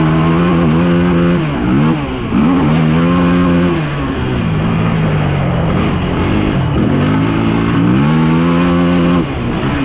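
Off-road vehicle engine running under the rider, revving up and easing off several times. Its pitch climbs, holds, then drops sharply, with short dips as the throttle is closed or a gear is changed.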